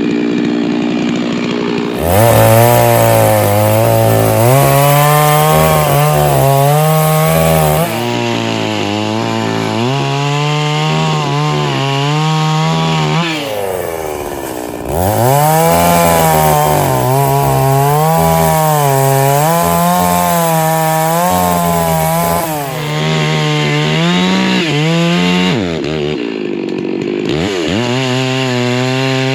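Stihl chainsaw bucking firewood. It idles briefly, then runs at full throttle through the wood, its pitch sagging and recovering under load. It drops back to idle twice, about halfway through and near the end, and revs up again each time.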